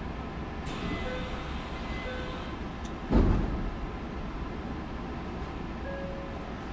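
Sanyo 6000 series electric train standing at a platform: a hiss of air for about two seconds, then a heavy thump about three seconds in, as of the sliding doors shutting, with two short beeps before it and another near the end.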